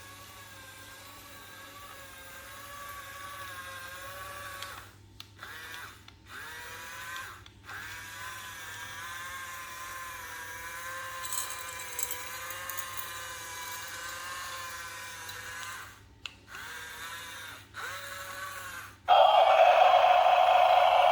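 A small motor whining steadily, its pitch wavering slightly, stopping briefly and starting again several times. Loud music with singing comes in near the end.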